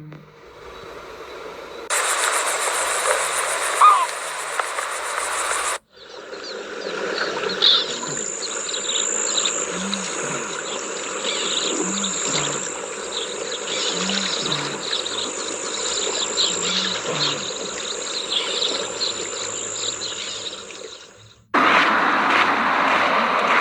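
Wild-ambience sound effect of crickets and other insects chirping steadily, with soft low pulses about every two seconds. It is cut in and out abruptly between stretches of rushing noise.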